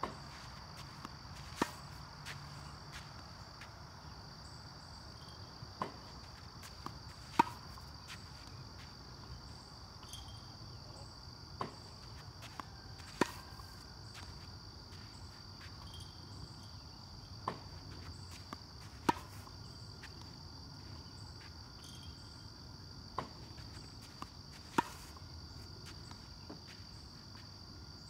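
Tennis balls struck with a racket on backhand slices, a sharp pop about every six seconds. Each hit is preceded by a softer knock about a second and a half earlier as the ball machine fires the ball. A steady high insect chorus of crickets runs underneath.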